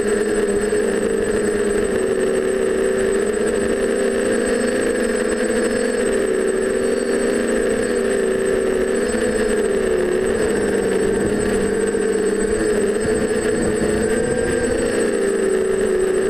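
A quadcopter's four DJI 920Kv brushless motors spinning Graupner E-Prop 9x5 propellers in flight. They give a steady buzzing hum whose pitch wavers up and down as the throttle is adjusted, with a thin steady high whine above it.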